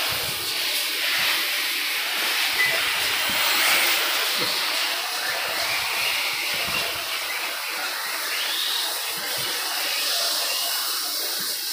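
1/8-scale electric RC buggies running on the track: a steady hiss of tyres and electric motors, with faint rising and falling whines as the cars speed up and slow down.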